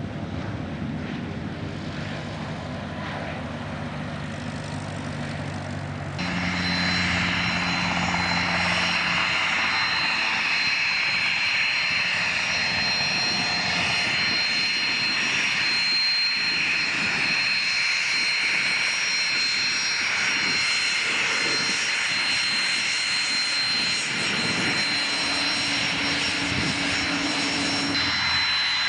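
Business-jet engines on a landing roll, a low steady rumble. About six seconds in it changes suddenly to a louder, steady high-pitched whine and rush from the twin rear-mounted turbofans of a Cessna Citation V taxiing close by.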